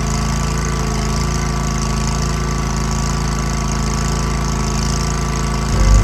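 Toro 36-inch Grandstand stand-on mower's engine running steadily. Near the end a louder, uneven low rumble comes in.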